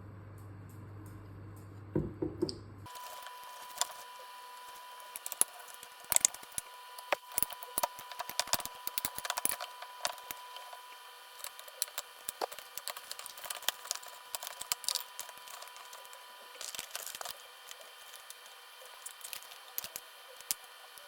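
Irregular small clicks, crackles and squishy handling noises, thin with almost no bass, over a faint steady high tone. A low hum cuts off suddenly about three seconds in, before the clicks begin.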